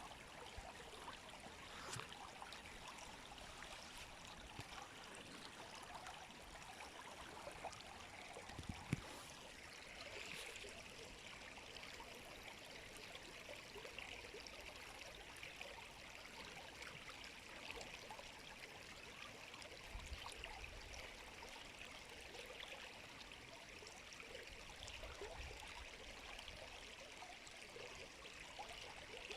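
River water flowing steadily and quietly, an even rush of water with many small splashing ticks through it, and one sharper click about nine seconds in.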